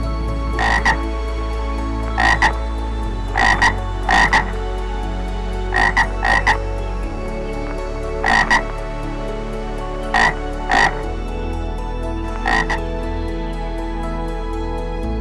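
Frog croaking: short, sharp croaks, mostly in pairs or threes, repeated every second or two.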